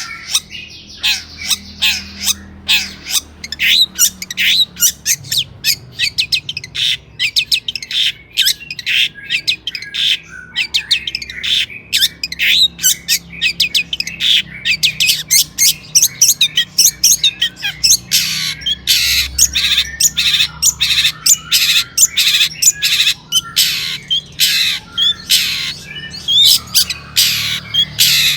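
Long-tailed shrike (cendet) singing: a fast, unbroken stream of short sharp chattering notes, several a second.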